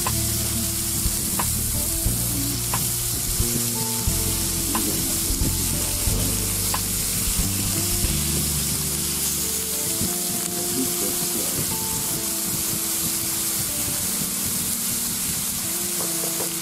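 Beef slices and shrimp sizzling on an indoor grill's ridged plate, a steady hiss, with a few light clicks of metal tongs against the grill in the first half.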